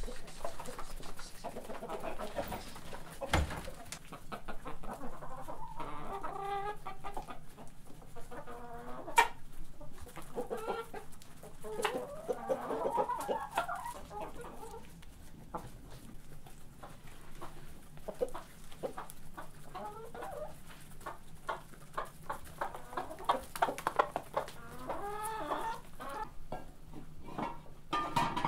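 Domestic hens clucking in several short runs while they feed, with many quick sharp taps of beaks pecking at a feed bowl.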